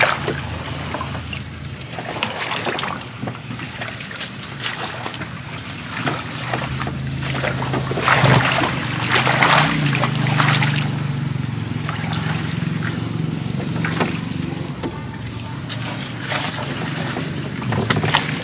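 Small boat's engine running steadily, louder in the middle, with water sloshing and splashing.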